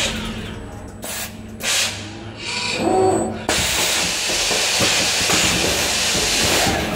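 Pneumatic pick-and-place gripper on a parts-sorting machine: a few short puffs of air, a brief tone near three seconds, then a steady hiss of compressed air that starts abruptly about three and a half seconds in.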